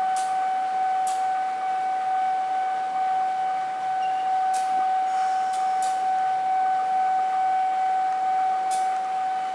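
Standing diesel locomotive running with a steady, unchanging high whine, with several short hisses.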